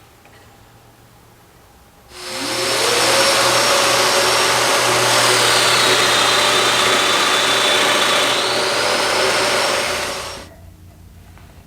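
Electric woodworking power tool with a high-speed motor starting up about two seconds in with a rising whine, running loud, its pitch dipping for about three seconds as if under load, then recovering and winding down near the end.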